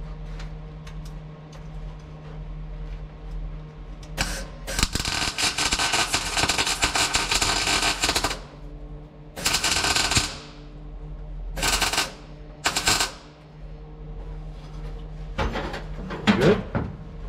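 Wire-feed welder crackling on steel as spot welds join the heater channel to the rear crossmember of a 1958 VW Beetle. One run of about four seconds starts about four seconds in, followed by three short bursts.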